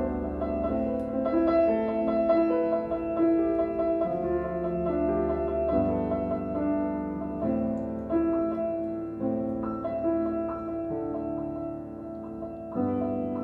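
Background instrumental music led by piano, slow notes and chords that change every second or so.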